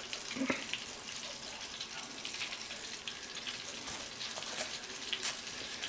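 Hot oil sizzling steadily in a deep fryer as fish fries, with fine crackles all through.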